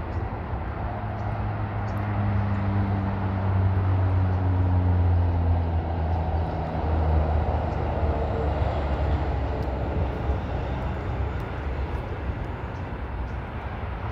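Low engine drone of a large vehicle passing by, its pitch slowly falling as it goes, loudest about midway and then fading.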